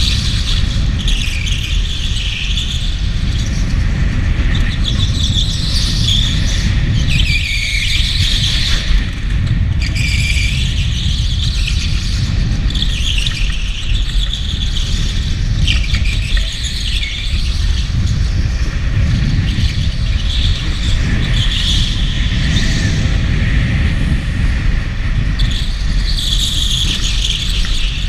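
Electric go-kart's tyres squealing through a run of corners on a smooth concrete track floor, a squeal every second or two over a steady low rumble from the kart.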